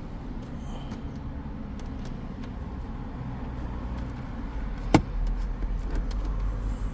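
A steady low rumble with a single sharp plastic click about five seconds in, as the interior dome light's lens cover is pried from its housing.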